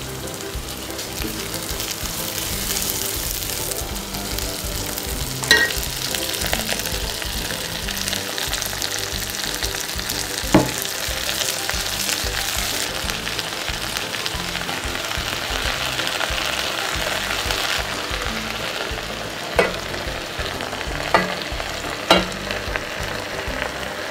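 Garlic, shallots, chilli and Chinese celery sizzling as they are stir-fried in a stainless steel pot. A spatula stirs through them, with about five sharp knocks against the pot.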